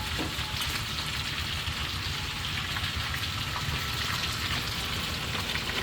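Pork belly and pineapple sizzling in a hot pan as they stir-fry: a steady frying hiss.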